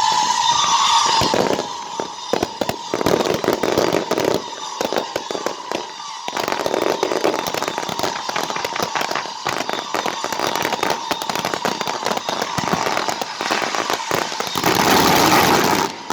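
Fireworks going off: dense, rapid crackling over a steady shrill whistle, swelling to its loudest about a second before the end and then cutting off.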